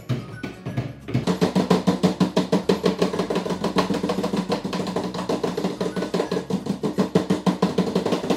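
Mallets pounding sweet biscuits inside plastic bags on a cloth-covered table, crushing them: a rapid, loud run of thumps, several a second, that gets louder about a second in.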